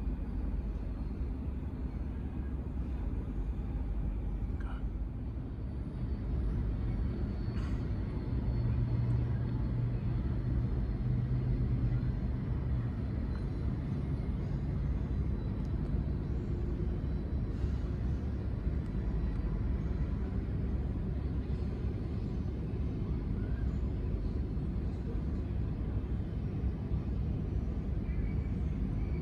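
Steady low engine rumble of distant vehicles, growing louder about six seconds in, with a low hum for a few seconds in the middle.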